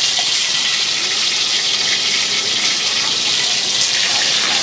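A steady, loud hiss with no breaks.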